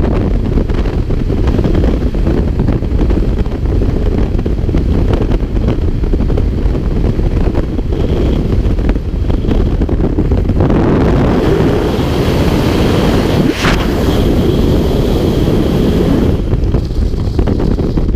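Wind rushing and buffeting the camera's microphone in a tandem skydive freefall. It is steady and loud, grows louder and brighter for a few seconds in the second half, and has one brief sharp rush about three-quarters of the way through.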